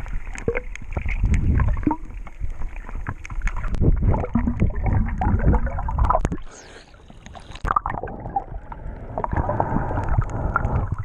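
Water moving around an underwater camera during snorkeling: an uneven low rumble with many small bubbly clicks and crackles. About six and a half seconds in, the rumble drops away for about a second, leaving a brief hiss, then returns.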